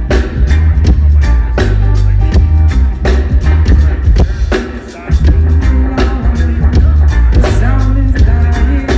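Live reggae band playing loud at a sound check, with a heavy bass line and a drum kit keeping the beat. The bass drops out briefly about four seconds in, then comes back.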